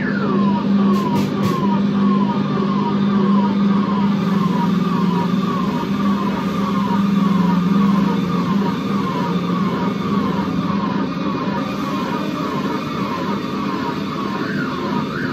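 Noise-jam electronics: a siren-like tone that falls in pitch over and over, about twice a second, above a steady low hum that fades out about halfway through. Near the end the tone swoops up in pitch.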